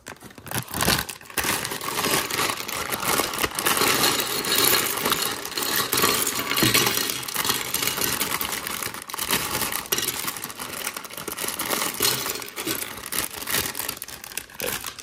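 Clear plastic parts bag crinkling while loose Lego Technic pieces are emptied out and pushed around on a tabletop, the plastic parts clattering and clicking against each other throughout.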